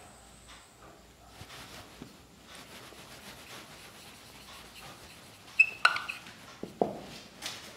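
Marker pen writing on a whiteboard: faint scratching strokes, then a few sharper squeaks and taps of the pen tip in the last two seconds.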